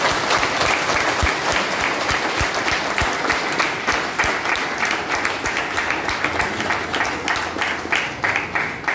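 Audience applauding steadily, a dense clatter of many hands clapping, thinning a little near the end.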